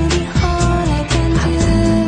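Background pop music with a steady beat and a singing voice.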